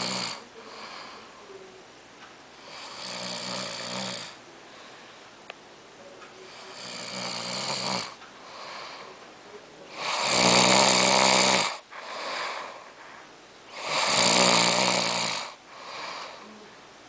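A drunk person snoring heavily and rhythmically, a long rasping snore about every four seconds with quieter breaths between; the two snores in the second half are the loudest.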